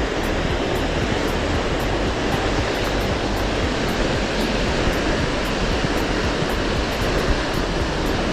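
Steady rush of a waterfall, an even hiss of falling water without a break.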